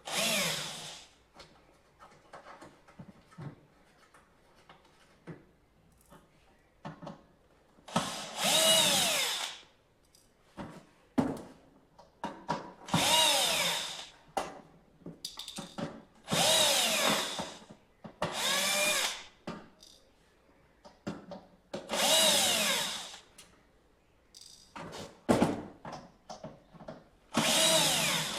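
Cordless electric screwdriver running in short bursts, about seven runs of a second or so each, its pitch shifting as the motor speeds up and slows, with small handling clicks between runs: screws being driven or undone to fit a hard drive into an NVR.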